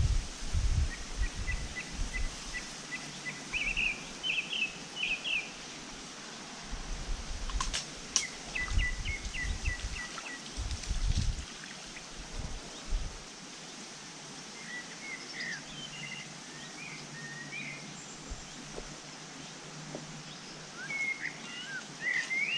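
Small songbirds singing in several short bouts of chirps, with low rumbling buffets through the first half that die away about thirteen seconds in.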